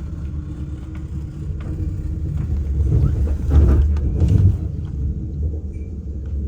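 Low, steady rumble of an ICE high-speed train in motion, heard from inside the carriage, swelling louder for a moment about halfway through.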